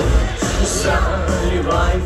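Loud music with singing in Russian over a steady drum and bass beat; a sung line comes in near the end.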